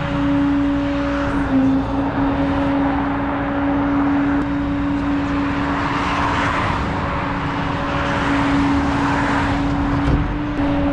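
A vehicle engine running with a steady, even hum under road noise. The noise swells briefly twice.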